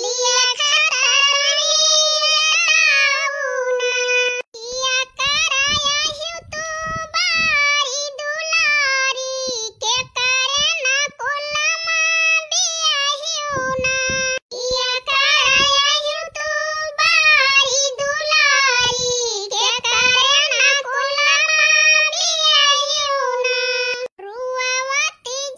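A high, pitched-up cartoon voice singing a weeding song in long melodic phrases, with only a few brief breaks.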